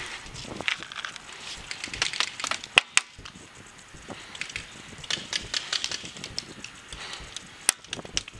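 Rustling and clicking handling noise from a paintball marker with a camera mounted on it as the player shifts behind a bunker. A few sharp cracks stand out: two close together about three seconds in and one near the end.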